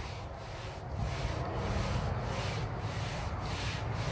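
Cotton dish towel wiped back and forth across a hot steel griddle top, spreading a thin coat of seasoning oil: rhythmic rubbing strokes, about two a second, over a low steady rumble.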